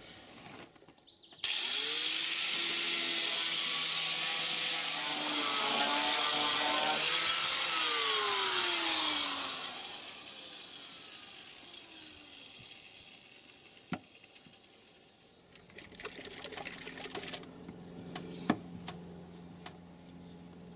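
Grinder fitted with a poly disc spinning up and grinding back a rough weld on a steel car floor pan for about eight seconds, then winding down with a falling pitch. Birds chirp faintly later on.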